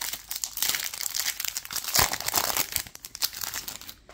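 Foil wrapper of a Panini Contenders football card pack being torn open and crinkled by hand: dense crackling and rustling, loudest about two seconds in and tapering off near the end.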